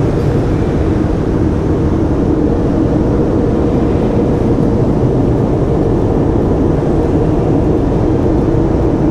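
Car wash dryer blowers running steadily, blasting air hard at a truck to blow the water off it, heard from inside the truck's cabin: a loud, even rush of air with a steady hum.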